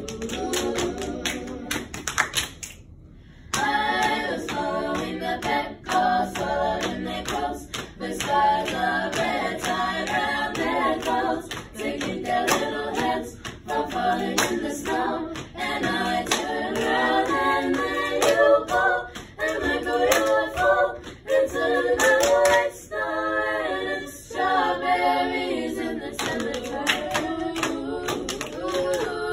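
Small a cappella group of young voices singing in close harmony, with sharp clicks from their hands keeping the beat. There is a short break in the singing about three seconds in.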